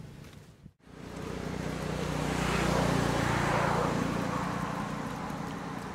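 A motor vehicle passing by: engine and road noise swell about two seconds in, then slowly fade away.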